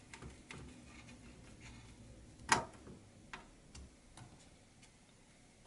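Faint ticking of a small screwdriver driving a screw into a laptop's metal palm-rest frame, with a sharp click about two and a half seconds in and a few lighter clicks after it.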